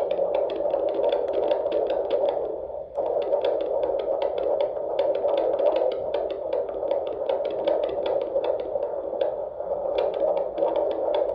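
Handheld fetal Doppler monitor picking up an unborn baby's heartbeat: a fast, regular pulse over steady static, briefly dropping out about three seconds in.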